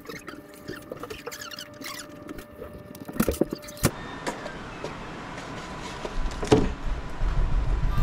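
Small plastic Lego bricks clicking and rattling as they are snapped together by hand, with a few louder knocks about three seconds in. Then comes handling noise from the camera being picked up and moved: a sharp knock and a low rumble near the end.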